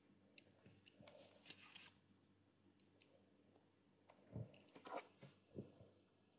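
Near silence: quiet room tone with a few faint clicks, and a handful of soft knocks and rustles in the second half.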